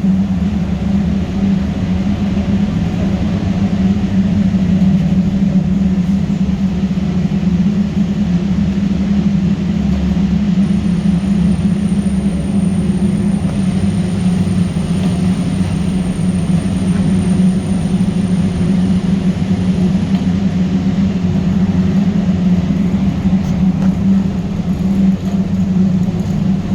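Steam boiler room machinery running: a loud, steady low hum and rumble.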